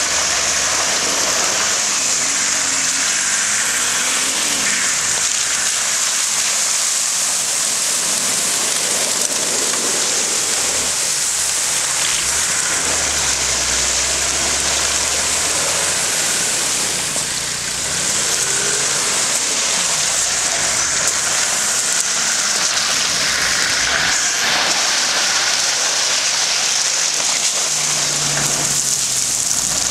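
Nissan Patrol 4x4 driving through shallow muddy water and up a loose gravel slope, its engine running low under a steady splashing hiss; the engine revs up briefly near the end on the climb.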